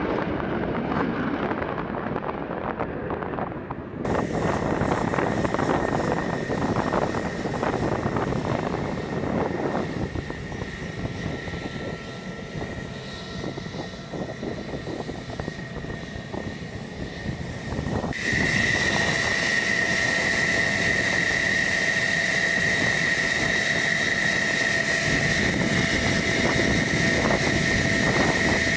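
F-16 Fighting Falcon jet engine: a rushing roar as the fighter lands, then quieter engine noise as it taxis at idle. About two-thirds of the way in it gives way suddenly to a loud, steady high-pitched whine from the idling engine close by.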